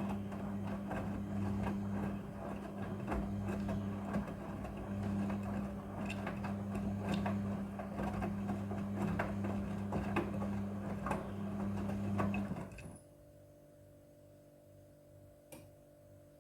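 Front-loading Midea washing machine in its wash cycle: the drum motor hums steadily while the laundry tumbles with many small clicks and knocks. About 13 seconds in, the drum stops and only a faint steady hum remains, the pause between drum turns in a wash cycle.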